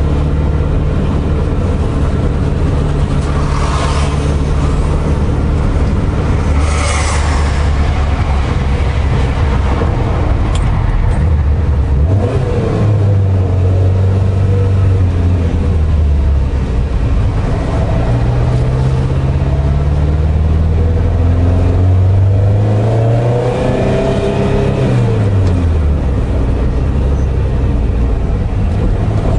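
1977 Ferrari 308 GT4 Dino's V8 engine heard from inside the cabin, running steadily at low revs. About halfway through it revs up in steps, then the revs fall away sharply and it settles back to a steady low run. A few seconds in there are two short rushes of noise.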